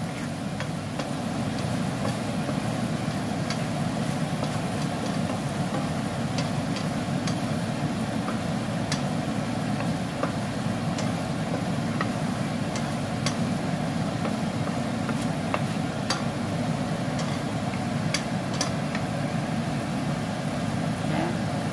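Honey and rose-petal syrup simmering in a nonstick frying pan: scattered small pops of bubbling over a steady low hum, with a wooden spatula stirring now and then.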